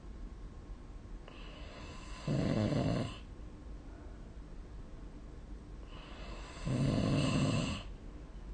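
A sleeping person snoring: two snores about four and a half seconds apart, each a rough low rattle lasting about a second inside a longer hissing breath, with quieter breathing between.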